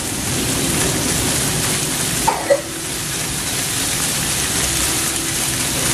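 Chopped bell pepper and onions frying in oil in a pan, with a steady sizzle.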